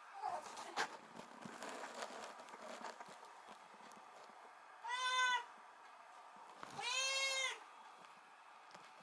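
Kitten meowing twice, a short call about five seconds in and a longer one about two seconds later, each rising and falling in pitch; faint taps and rustles before them.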